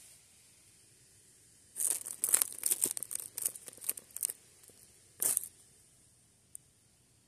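Dry fallen leaves crackling and rustling in a quick flurry of crisp rustles from about two to four and a half seconds in, then one more short rustle a second later, as something moves across the leaf litter.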